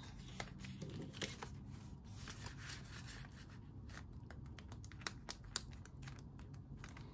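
Faint handling of a soft PVC zip cash envelope in a ring binder: the plastic and paper bills crinkle and rustle with a string of small clicks as the envelope is opened, the bills slid in, and its zip edge pressed shut near the end.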